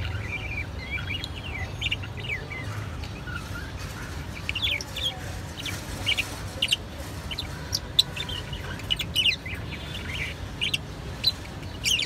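Budgerigars chirping: soft warbling at first, then quick, sharp chirps and short squawks coming thick and fast from about four seconds in, over a low steady hum.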